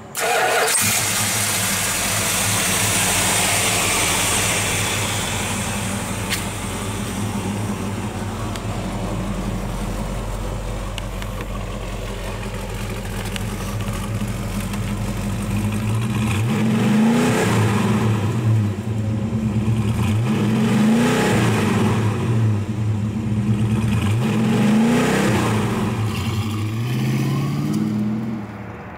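1968 Plymouth GTX's big-block V8 starting, catching with a burst just after the start and settling into a steady idle. In the second half it is revved four times, about four seconds apart, each rev rising in pitch and dropping back to idle.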